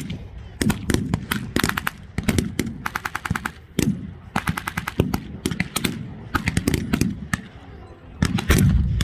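Blank gunfire across a WWII battle reenactment: scattered single shots mixed with short bursts of automatic fire, and a louder, deeper bang near the end.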